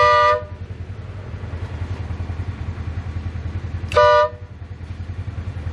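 Air horn from a WD Electronics street legal kit on a Polaris General XP 1000 UTV, sounded in two short blasts about four seconds apart. The UTV's engine idles underneath.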